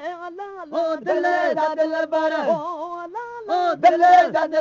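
Male voice chanting a Sindhi maulud, a devotional song in praise of the Prophet, the melody gliding and curling through ornaments between held notes.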